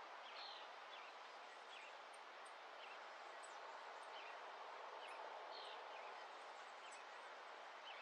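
Faint tropical dawn ambience: scattered short bird chirps over a steady soft hiss.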